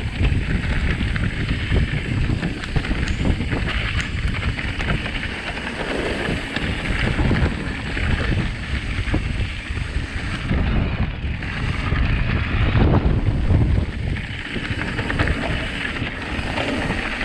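Wind rushing over the camera microphone while riding an electric mountain bike along a gravel trail, with a constant low rumble of tyres and frame and many small knocks and rattles.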